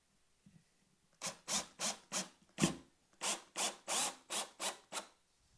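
Cordless drill driving a wood screw into a hemlock board in about a dozen short bursts, roughly three a second, the screw rubbing as it bites into the wood.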